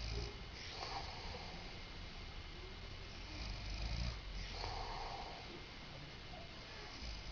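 Man snoring in his sleep: two rough snoring breaths about four seconds apart, each a low rumble followed by an airy breath.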